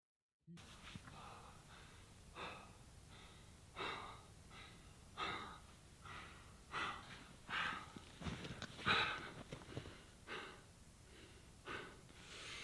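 A man breathing hard and unevenly, a loud breath about every second: the worked-up breathing of a hunter who has just shot a big mule deer buck.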